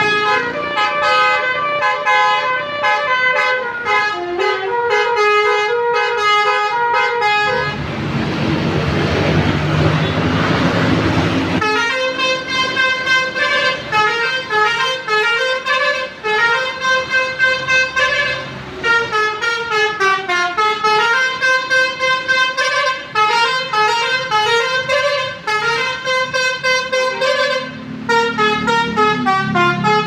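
Basuri 'telolet' bus horns playing tunes in quick stepping notes, several tones at once, over passing traffic. For about four seconds in the first third a loud rushing noise drowns out the horns, and then the tune resumes.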